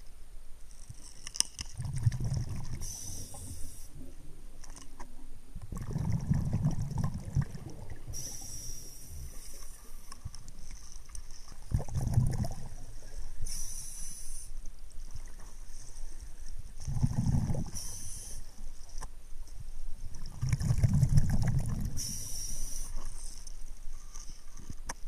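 Underwater breathing through a scuba regulator: about five slow breaths, each a short hiss of inhalation followed by the low rumble of exhaled bubbles.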